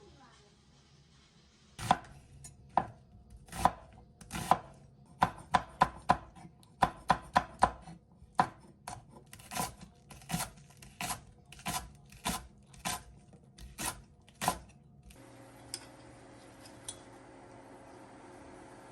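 A knife chopping on a cutting board, a run of sharp separate strokes about two a second that stops about fifteen seconds in. After it comes a steady faint hum with a couple of light ticks.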